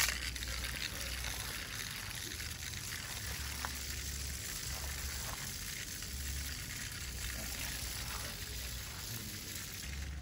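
Remote-control toy centipede walking, its small gear motor and many plastic legs scuttling as a steady high hiss.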